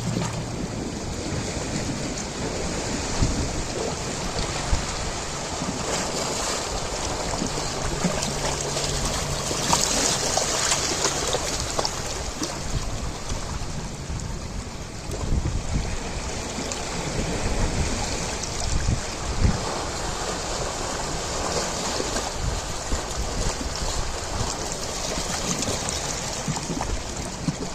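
Ocean waves breaking and washing in continuously, with rising and falling surges, and wind buffeting the microphone in low rumbles.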